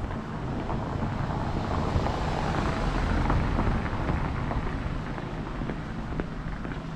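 A passing vehicle, a rushing engine noise that swells about two to three seconds in and then fades.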